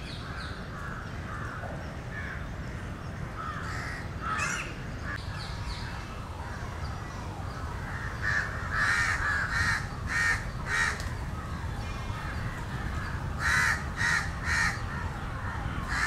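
Crows cawing: a few scattered calls, then a run of about five short caws starting about eight seconds in and another run near the end, over a steady low background noise.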